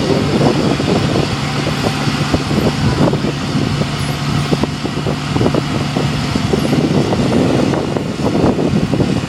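Boat travel lift's engine running steadily with a constant low hum while the hoist holds a motor yacht in its slings.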